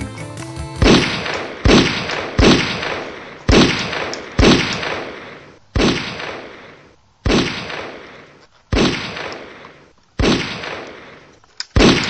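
A string of about ten single gunshot sound effects, a second or so apart at first and spreading out later, each with a long fading echo; music cuts off just before the first shot.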